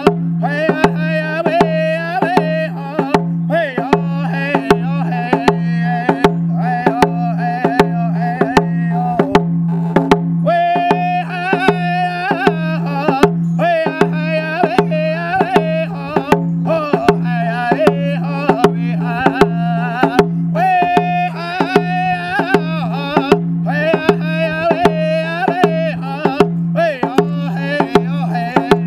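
A round rawhide hand drum struck with a beater in a steady, even beat, its low ring carrying between strokes, while a man sings a high-pitched traditional drum song over it.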